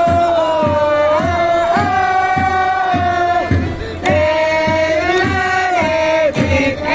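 Football supporters singing a chant in unison on long held notes, backed by a steady drum beat of about two strokes a second.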